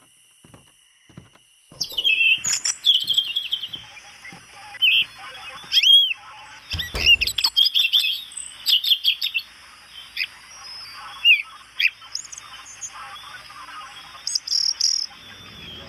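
Recorded birdsong, many short chirps and calls, played by a light-up birdhouse doormat's built-in sound unit. It starts about two seconds in over a steady high hiss.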